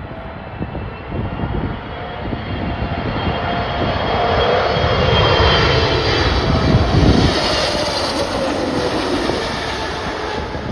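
Jet airliner's engines passing close by, a rushing roar with a whine that slowly drops in pitch, swelling to its loudest around the middle and fading toward the end. Low wind rumble on the microphone underneath.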